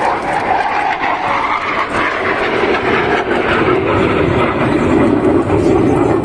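Jet engine noise from a formation of Surya Kiran team BAE Hawk jets flying overhead: a steady rushing noise that deepens and grows a little louder in the second half.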